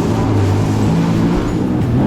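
Jet ski engine running at speed, its pitch rising and falling as the throttle changes, over a steady rush of wind and water.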